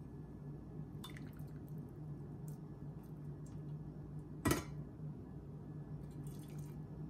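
Hot water poured slowly in a thin trickle from a stainless steel kettle into a shallow glass baking dish, dripping and splashing faintly. One short, sharp knock about four and a half seconds in.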